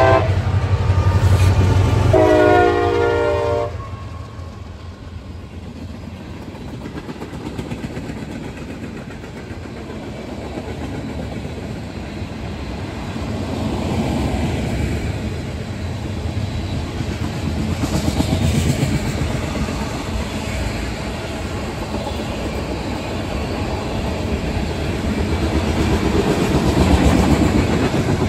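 Passing CSX diesel freight train: the lead locomotive's air horn sounds briefly at the start and again for about a second and a half from two seconds in, over the heavy rumble of the two locomotives' diesel engines going by. Then the freight cars roll past with a steady rumble and wheels clacking over the rail joints.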